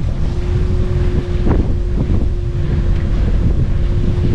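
Wind buffeting the microphone over water rushing and slapping along the hull of a sailing yacht under way, with a steady hum running underneath.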